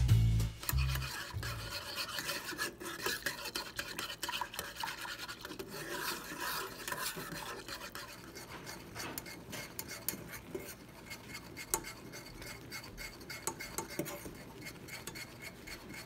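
A thin metal whisk stirring thick, bubbling gravy in a stainless steel saucepan, with quick clicks and rasping scrapes of metal against the pan. Music fades out in the first second or two.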